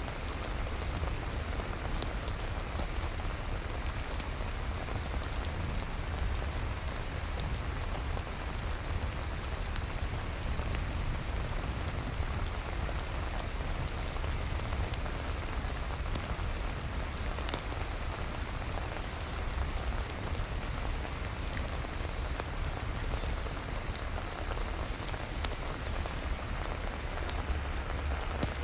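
Steady rain falling, an even hiss with a low rumble underneath and a few faint sharp clicks scattered through.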